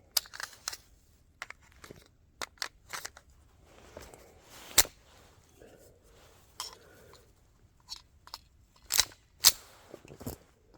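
A series of sharp clicks and knocks, a dozen or so at irregular intervals, with the loudest ones about five seconds in and a close pair about nine seconds in.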